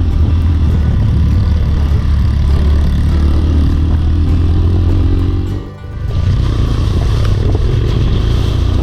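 Trail motorcycle engine running steadily, mixed with background music; the sound drops out briefly about six seconds in.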